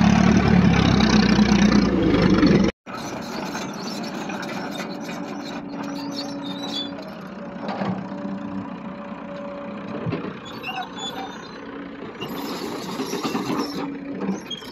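Loud engine noise for the first few seconds, which cuts off abruptly. Then a Hitachi hydraulic excavator's diesel engine runs with a steady hum while the bucket digs and loads soil into a truck, with a couple of sharp knocks from the bucket.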